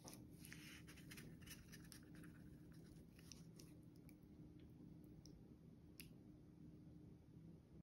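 Near silence with faint scraping and soft clicks from a plastic slotted spatula cutting into a baked eggplant gratin and lifting a portion from the baking dish, busiest in the first couple of seconds.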